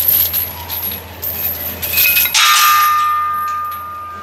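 Steel weight plates and chains clinking and rattling on a barbell as they are handled. About two and a half seconds in comes a sharp metal clang that rings on and fades over the next two seconds.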